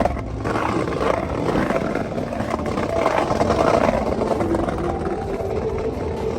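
A car engine running, with a dense rapid pulsing that holds steady throughout.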